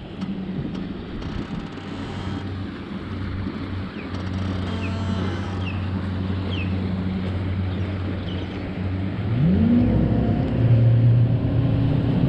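Boat engine running steadily over wind and water noise. About nine and a half seconds in it rises in pitch and gets louder, as if throttling up, then holds at the higher speed.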